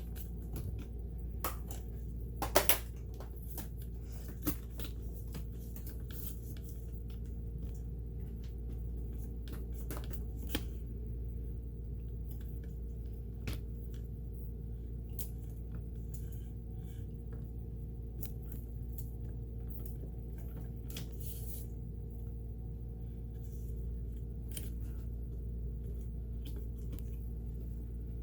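Scattered small clicks and taps of a sewing machine's parts being handled and worked on, the loudest a close pair about two and a half seconds in, over a steady low hum.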